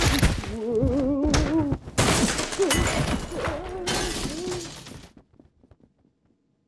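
Cartoon sound effects of a crash and breaking glass as a man bursts out through a window, under a wavering wail that fades away. All is quiet by about five seconds in.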